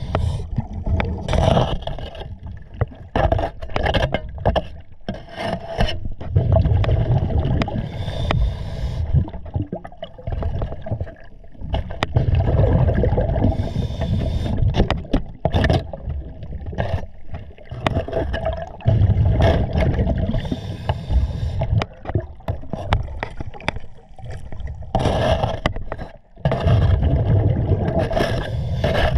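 Underwater sound of a diver's exhaled bubbles rumbling out four times, about every six to seven seconds. Between the breaths come short sharp clicks and scrapes from a metal scraper worked against a hull thick with marine growth.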